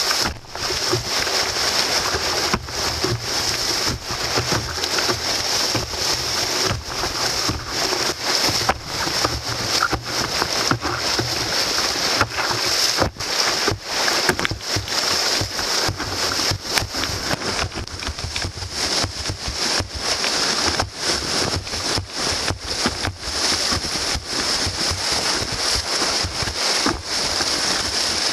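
Whitewater rapids rushing and splashing around an open canoe as it runs through them: a steady, loud wash of water noise.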